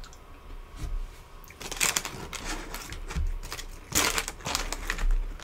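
Paper food wrapper crinkling as fingers dig through chicken wings, in two spells of crackling, about two seconds in and again about four seconds in, with soft bumps of handling underneath.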